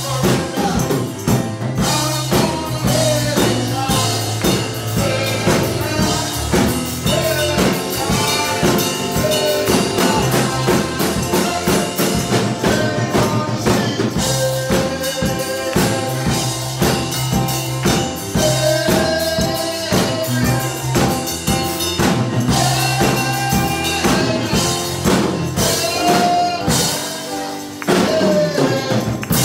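Live church band music: a drum kit and a keyboard playing an upbeat praise song, with a man singing over it into a microphone. The music dips briefly near the end, then comes back in.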